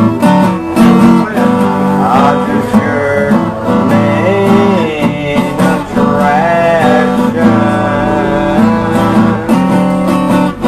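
Acoustic guitar strummed steadily in a live solo song, with a man's voice singing drawn-out notes over it in places.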